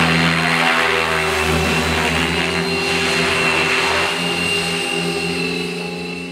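Two electric 700-size RC model helicopters (Gaui X7) hovering overhead: a steady rotor buzz with a thin high motor whine, easing slightly near the end.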